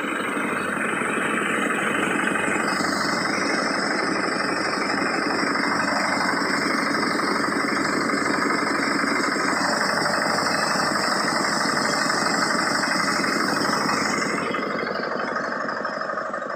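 Prakash single-cylinder diesel oil engine running steadily under load, driving a sorghum thresher, with the threshing machinery clattering over it. The sound eases slightly near the end.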